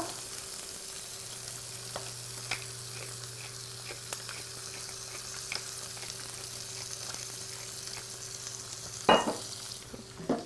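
Lamb knuckles sizzling steadily as they brown in an oiled pan, with faint ticks from a pepper grinder being twisted over them. There is a louder knock about nine seconds in and a smaller one near the end.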